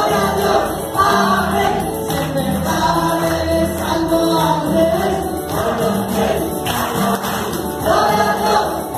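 Live upbeat Catholic praise song: a woman sings into a microphone through PA speakers, with other voices singing along and keyboard accompaniment.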